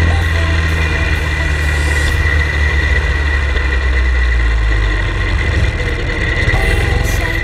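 Vehicle engine running under way, heard from an onboard camera with rushing wind noise; the engine note drops about three seconds in and stays lower.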